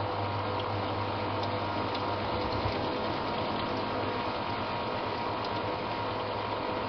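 Samsung WA89V washing machine in its rinse phase: water running inside the tub with a steady low hum that drops out about two and a half seconds in and comes back near the end.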